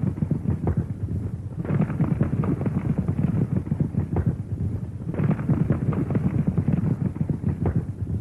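Horse galloping hard: a dense, rapid drumming of hoofbeats on dry ground, easing briefly about a second and a half in and again about five seconds in.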